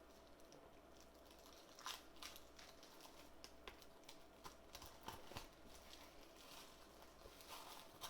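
A 4K steelbook's packaging being opened by hand: faint crinkling of its plastic wrapping and scattered small clicks, starting about two seconds in.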